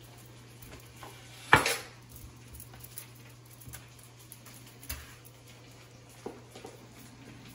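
Kitchen handling sounds at the counter: one sharp knock about a second and a half in, then a few light clicks and taps, over a low steady hum.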